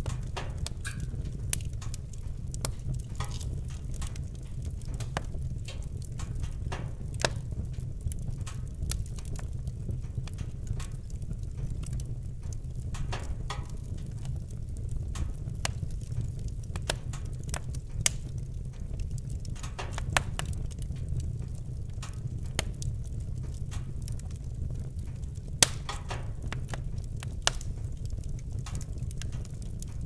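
Wood fire in a fireplace crackling: irregular sharp pops and snaps over a steady low rumble, with a few louder pops standing out.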